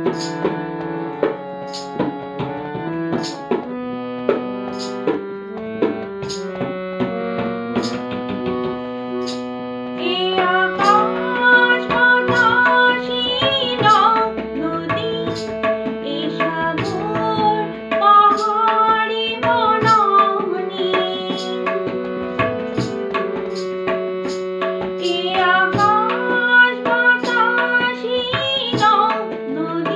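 A woman sings a Bengali devotional song to harmonium and tabla accompaniment. For about the first ten seconds the harmonium plays an interlude over the tabla's steady strokes, and then her voice comes in and carries the melody.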